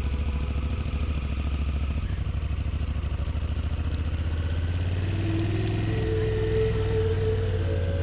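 Motorcycle engine running steadily with an even low pulse. Background music comes in about five seconds in.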